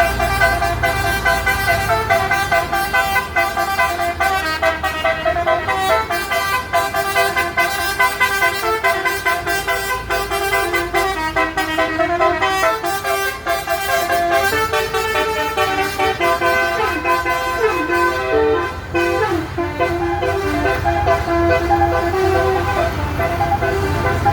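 Basuri musical air horn on a bus playing a multi-note telolet tune, the notes stepping up and down in pitch one after another, with the bus engine rumbling underneath.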